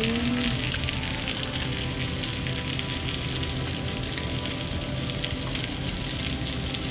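A pot of water at a rolling boil, bubbling steadily as baking soda is tipped in.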